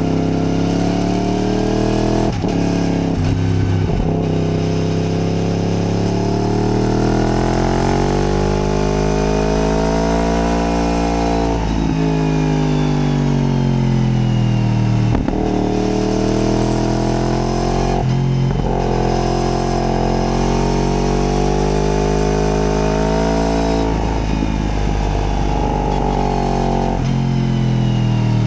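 Yamaha MT-10's crossplane inline-four engine pulling hard, its revs climbing and falling through a run of bends. Several short breaks mark gear changes.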